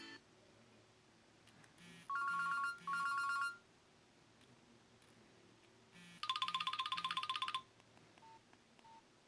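Nokia Asha 300 playing preloaded ringtones: two short trilling rings like an old telephone bell, each alternating rapidly between two pitches. Then, after a pause, a fast pulsing beep-trill lasting about a second and a half, and two faint short beeps near the end.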